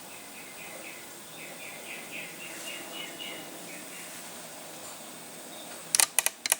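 A quick run of faint, high chirps, about five a second, from a bird. Near the end come several sharp computer keyboard clicks.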